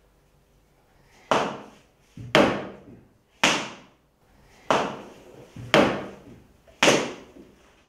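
Banging on a wooden door with a slipper: six heavy blows in two sets of three, about one a second, each ringing briefly.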